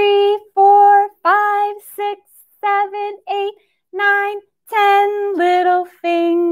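A woman singing a counting nursery rhyme, one short syllable per number on the same repeated note, the tune stepping down near the end as the count finishes.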